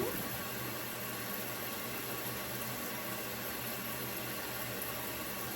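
Shower water running with a steady hiss.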